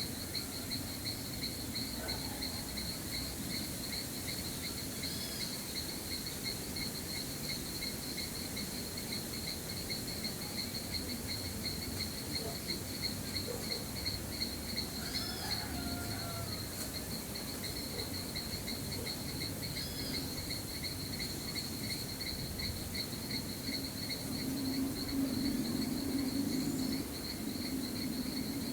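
Insects trilling: a steady, high, fast-pulsing chirr that never stops, with a few brief bird calls over it. A low drone swells for a few seconds near the end.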